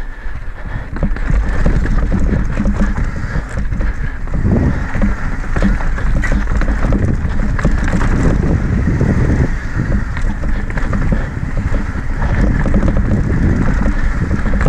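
Mountain bike descending a rocky dirt trail: tyres crunching over dirt and rock with frequent knocks and rattles from the bike, under heavy wind noise on the microphone.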